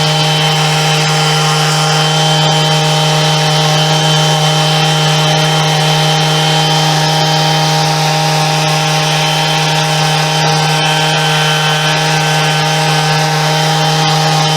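Electric sander running steadily at constant speed, sanding the rough edges off a short sawn section of wooden pole.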